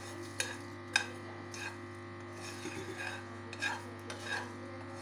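Steel spoon stirring whole spices and dried red chillies dry-roasting in a non-stick wok: short scrapes and clicks of the spoon against the pan and the seeds rustling, several times, over a steady hum.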